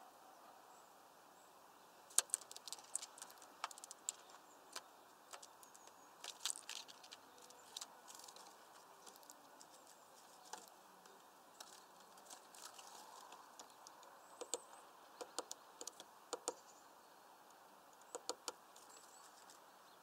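Great spotted woodpecker pecking at suet in a plastic mesh feeder bag: irregular clusters of sharp taps, starting about two seconds in.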